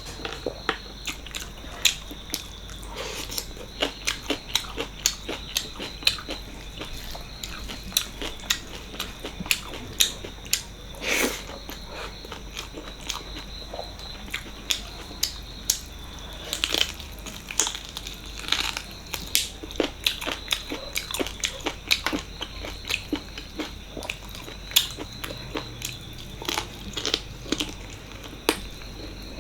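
Close-up chewing and eating of mutton leg (paya) curry with rice: many irregular wet mouth clicks and smacks, with a faint steady high-pitched whine underneath.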